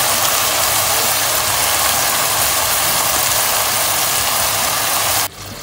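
Steady sizzling hiss of browned minced beef frying in a hot pan as tomato passata is poured onto it, cutting off abruptly near the end.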